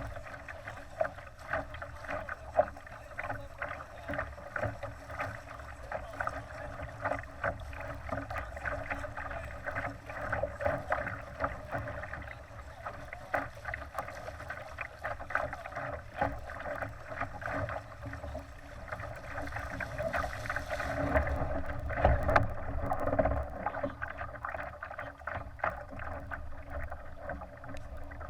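Water slapping and splashing against the hull of a Laser sailing dinghy under way, in quick irregular beats, a little louder about three quarters of the way through.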